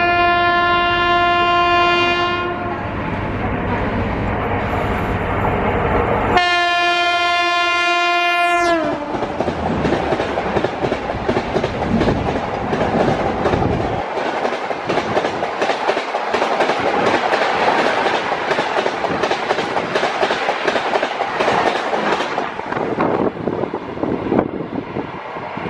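Horn of an oncoming WAP-5 electric locomotive sounding twice, the second blast dropping in pitch as the locomotive passes close by. The Shatabdi's coaches then rush past on the next track with a dense rattling clatter for about fourteen seconds, heard from the open door of another moving train, whose own running noise is left near the end.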